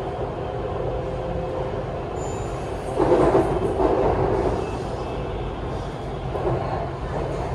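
BTS Skytrain electric train running on its elevated track, with a steady rumble of wheels and running gear. It swells louder for a second or so about three seconds in.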